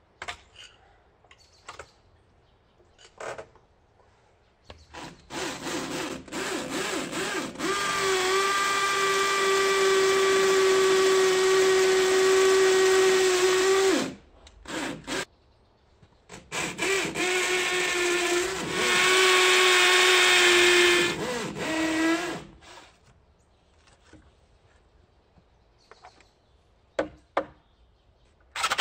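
Power drill boring into a brick wall in two long runs, the first about nine seconds and the second about five, its motor holding a steady whine that wobbles in pitch as each run starts. A few scattered clicks and knocks come before and after the drilling.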